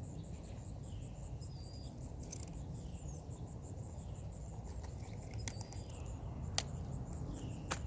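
Outdoor ambience: a steady low rumble, an insect's steady high trill and small birds chirping. A few sharp clicks come through, the two loudest in the second half.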